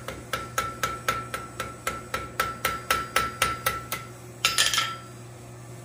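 Blacksmith's hammer forging a 3/4-inch square steel bar on an anvil, striking in quick, even blows of about four a second with a steady ringing tone under them. The blows stop about four seconds in, followed by a brief scraping clatter.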